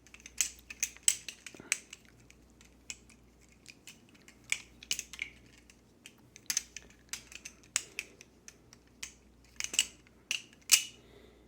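Balisong (butterfly knife) being flipped, its handles and blade swinging on the pivot pins: irregular runs of sharp clicks and clacks as the handles and blade strike each other.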